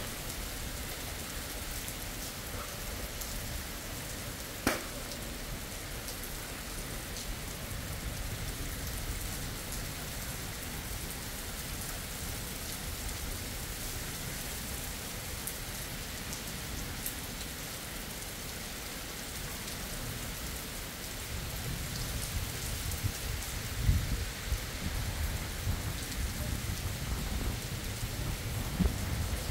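Rain falling steadily on the ground, with one sharp tap about five seconds in. Near the end a low rumble of thunder swells up, peaking a few seconds before the close.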